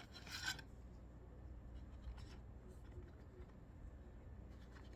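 Faint rustling of paper and card as album inserts are handled, with a short louder rustle just after the start and a few faint scrapes later, over a steady low hum.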